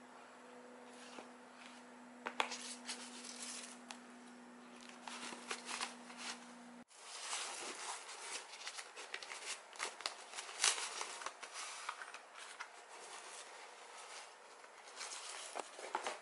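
Paper wrapping and canvas tote bags rustling as they are handled and lifted out of a cardboard box, with many small crinkles and taps. A steady low hum sits under it for the first seven seconds or so, then cuts off suddenly, and the rustling grows busier.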